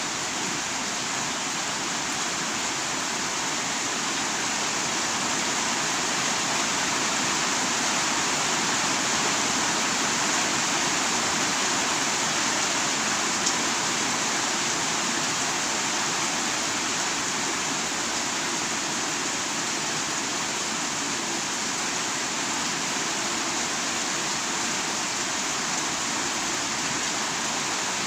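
Heavy rain falling steadily, a little louder toward the middle, with one brief sharp tick about halfway.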